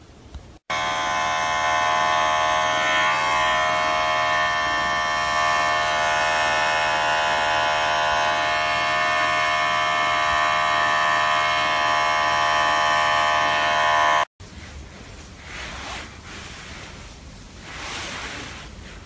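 Electric pet hair clippers running with a steady hum full of evenly spaced overtones, shaving a kitten's belly fur. The hum starts abruptly about a second in and cuts off sharply after about thirteen seconds.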